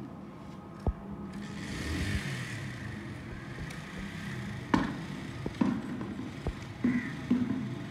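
Manual hedge shears clipping a leafy topiary shrub: a handful of sharp snips, mostly in the second half, over a steady low background hum.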